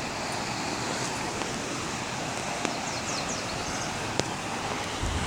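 Steady rush of falling water from a waterfall, an even noise with a few faint clicks and brief high chirps near the middle.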